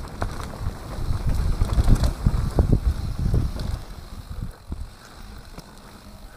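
Wind buffeting the microphone over the rumble and clatter of a mountain bike riding fast down a dirt and leaf-covered trail, with frequent knocks as the wheels hit bumps. It gets noticeably quieter about four seconds in.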